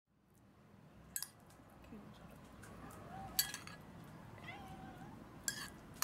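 Three sharp clinks of a metal spoon against ceramic bowls as raw fish pieces are spooned out. A cat meows twice between them.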